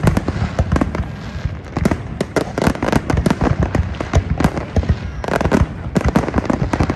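Fireworks display: aerial shells bursting in a dense, continuous barrage, several loud bangs a second.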